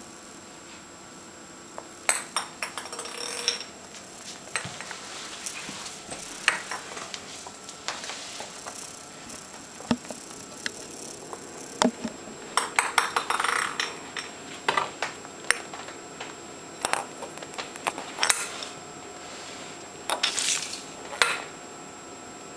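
Light clicks, taps and scrapes on a wooden parquet floor as a kitten bats a small toy about and scrabbles with its paws, coming in irregular clusters with short gaps between.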